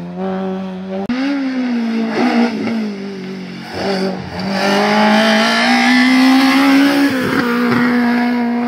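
Rally car engine at high revs through a hairpin. The pitch falls about a second in, then climbs steadily from about four seconds in as the car accelerates, with a brief break just after seven seconds before it holds high again.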